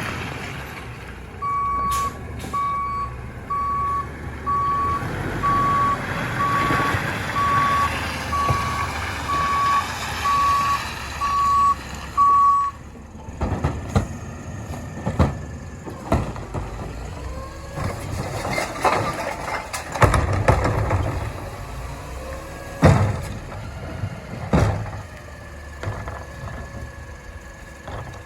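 Garbage truck's backup alarm beeping steadily, a little faster than once a second, as the truck reverses, stopping about 13 seconds in. After that the truck's engine runs under a series of sharp metallic knocks and bangs.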